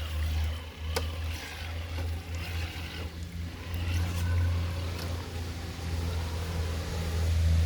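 Radio-controlled crawler truck driving: its electric motor and drivetrain give a steady low hum that rises and falls with the throttle, with a few sharp clicks.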